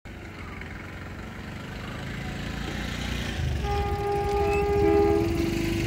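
Approaching locomotive, its low rumble growing steadily louder, then its horn sounding from about three and a half seconds in: a held note followed by a slightly lower one that overlaps it and carries on.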